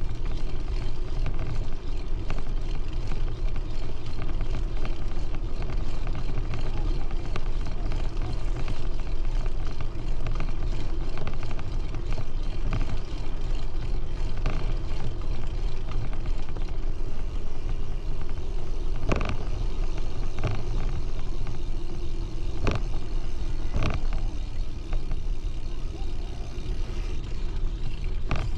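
Riding noise from a bicycle: wind buffeting the microphone and tyres rumbling steadily on a paved path, with a few sharp clicks in the second half.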